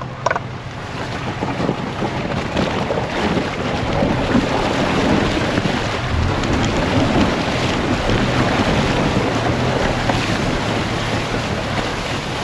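Off-road 4x4 driving through an icy water-filled trail hole: a dense rush of sloshing, splashing water against the vehicle over a steady low engine hum, building over the first few seconds and then holding.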